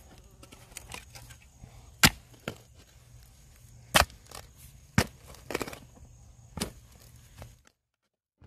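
Steel garden spade digging a planting hole: the blade is driven into soil and mulch in a handful of sharp chops, spaced one to two seconds apart.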